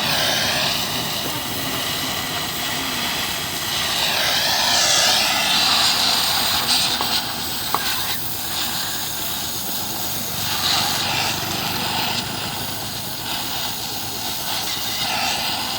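Gas welding torch flame hissing with a steady rushing noise that swells about four to six seconds in, with one sharp click near the middle.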